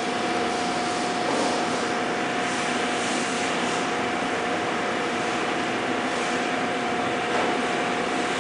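Trickle varnish impregnation machine running with its stator-carrying table turning: a steady hiss with a constant mid-pitched hum.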